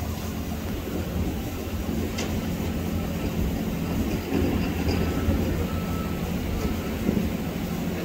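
Steady low mechanical rumble with a low hum under it, like heavy machinery running, with a faint tick about two seconds in.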